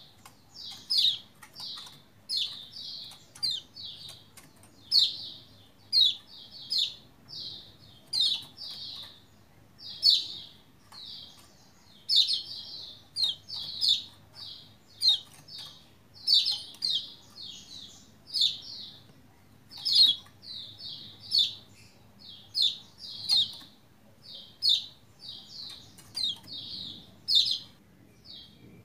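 A caged kecial kuning (Lombok white-eye, 'pleci Lombok') calling in a fast, unbroken run of short, high, sharp chirps, mostly in quick groups of two to four. This is the energetic 'gacor' calling that keepers play to get other white-eyes to answer.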